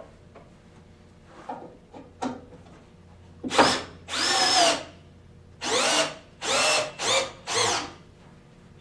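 A power drill/driver runs in six short bursts, driving the bolts that hold the sling rail to an aluminum chaise lounge frame; its motor pitch sags toward the end of some runs. A few light clicks come before the first run.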